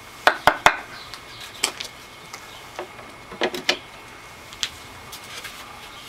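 Sharp plastic clicks and knocks as the parts of a Bissell PowerForce upright vacuum are handled: three quick ones in the first second, then a few more scattered through the rest.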